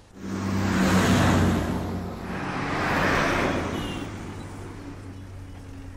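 A bus driving past close by, its engine humming under tyre and road noise, loudest about a second in. A second pass of traffic swells about three seconds in and fades away.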